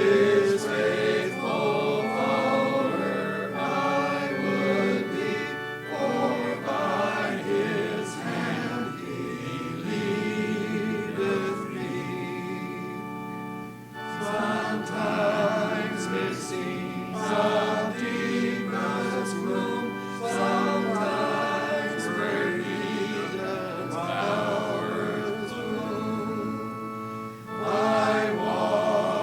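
A congregation singing a hymn together over sustained keyboard accompaniment, with a short break between phrases about halfway through.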